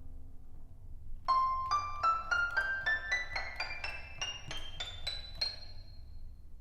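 EASYPLAY 1s pocket keyboard playing a piano-like sound sample: a held note fading out, then a quick ascending run of about fourteen notes, roughly three a second, the last one ringing out.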